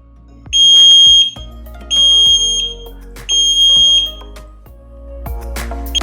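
Tuya WiFi smoke detector sounding its alarm: three loud, high-pitched beeps, each under a second, then a pause. This is the standard three-pulse fire-alarm pattern. Background music plays underneath.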